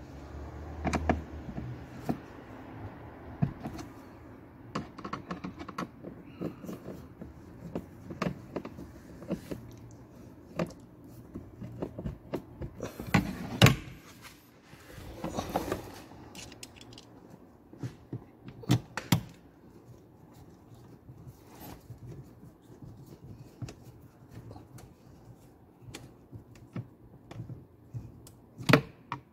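Irregular plastic clicks and knocks from a Nissan Tiida's glovebox being fitted back and shut, the loudest knock about halfway through.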